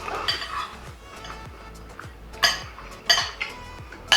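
Cutlery clinking and scraping against dishes and food containers during a meal, with a few sharp clinks, the loudest about two and a half, three and four seconds in.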